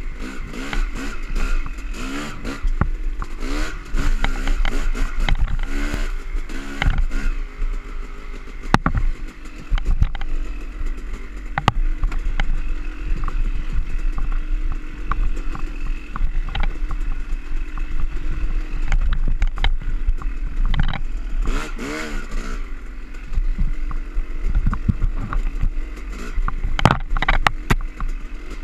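Yamaha YZ250 two-stroke dirt bike engine being ridden on a rough trail, its pitch rising and falling again and again with throttle on and off. Frequent clatter and knocks from the bike on the uneven ground.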